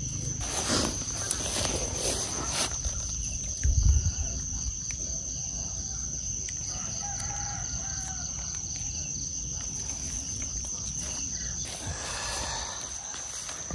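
A rooster crowing faintly, over a steady high-pitched whine; a dull low thump about four seconds in is the loudest sound.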